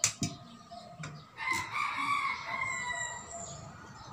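A rooster crows once, a single call of about two seconds starting about a second and a half in and dropping slightly at its end. Sharp clinks of a metal spoon against a ceramic bowl come at the very start.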